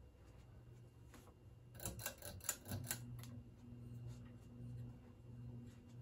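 Ceiling fan motor humming faintly and steadily. About two seconds in comes a quick run of clicks and rattles as the pull-chain speed switch is worked, then the hum grows stronger and gains a higher note as the fan picks up to medium speed.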